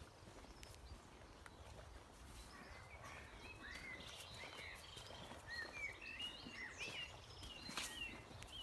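Faint birdsong: many short, quick chirping notes from small birds, growing busier from about a third of the way in, over a low steady outdoor rumble.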